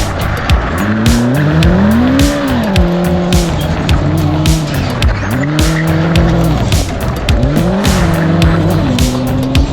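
Suzuki Ignis competition car's engine being driven hard, its revs climbing and dropping again several times, revving freely and smoothly on its new clutch.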